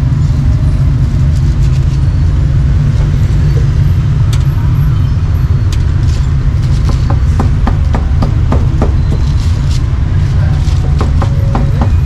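Steady low rumble of street traffic, with a run of short sharp knocks in the second half.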